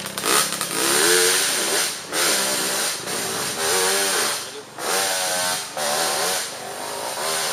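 Dirt bike engines revved again and again, each rev rising and falling in pitch over about a second, as the machines are worked up a steep, rutted trail.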